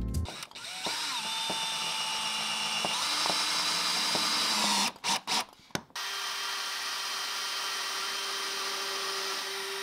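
DeWalt cordless drill running under load as it drills into cedar decking boards, a steady motor whine that shifts in pitch. It stops about halfway with a couple of short starts, then runs steadily again.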